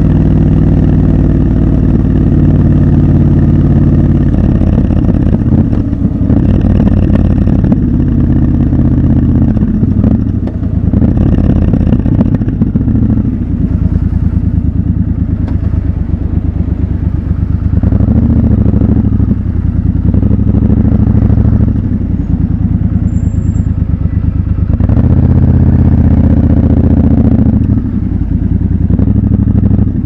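Triumph Scrambler 1200 XC's 1200 cc parallel-twin engine heard from the rider's seat. It runs steadily at first, then eases off and pulls away again in several short bursts of throttle, its note rising each time, in stop-and-go city traffic.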